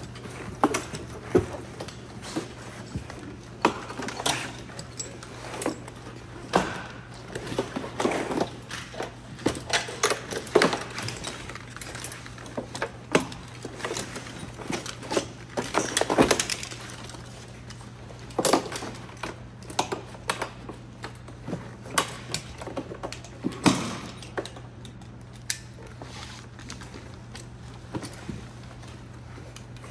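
Irregular clinks, knocks and rustling of firefighters' turnout gear, air-pack harnesses and buckles being handled against a plastic basket litter while a downed firefighter is packaged in it, over a steady low hum.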